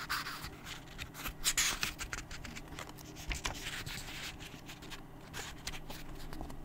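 Paper rustling with many small clicks and scrapes, as a book's pages are handled, over a faint steady low hum.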